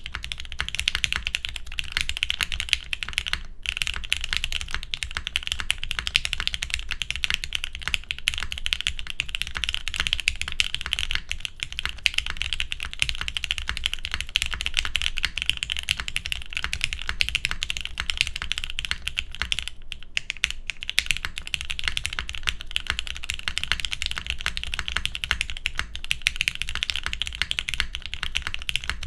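Mode Sonnet mechanical keyboard with Gateron Black Ink linear switches on a plastic plate, typed on quickly and continuously, with a short pause about three and a half seconds in and another about twenty seconds in.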